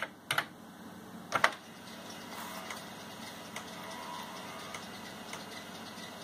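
A few computer keystrokes, the last a double click about a second and a half in. Then the Amstrad DDI-1 3-inch CF2 disk drive runs, with faint, fast ticking as it reads the disc's directory.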